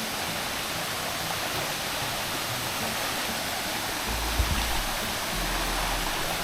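Steady rush of water from a rainforest waterfall, with a low rumble joining it partway through.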